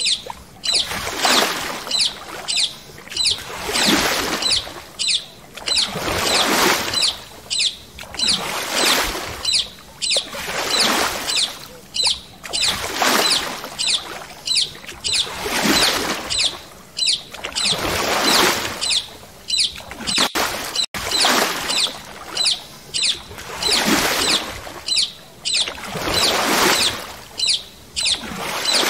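Water swishing in a steady rhythm, one swell every two to three seconds, with many short high bird chirps over it.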